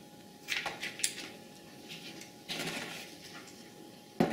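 Scissors snipping off the excess end of a latex twisting balloon: a couple of sharp snips in the first second, then soft rubbing of balloons and a click near the end.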